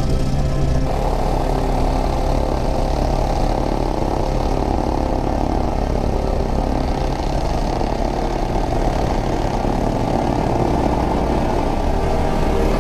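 Helicopter in flight: a steady, loud drone of engine and rotor.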